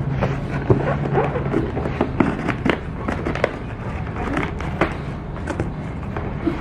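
A cardboard box and its packaging being handled and pulled at during an unboxing: an irregular run of crackles, taps and rustles.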